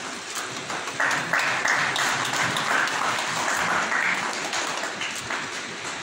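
A group of people applauding. The clapping starts suddenly about a second in, goes on for about four seconds, and thins out near the end.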